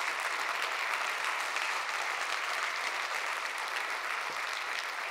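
Audience applauding: a steady crowd of clapping hands that eases off slightly near the end.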